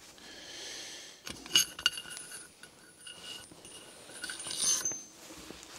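Small steel parts of a lathe's 5C drawbar and thrust-bearing assembly clinking against each other as it is taken apart. A few sharp clinks about a second and a half in leave short metallic ringing, with more clinks and a brief ring near the end.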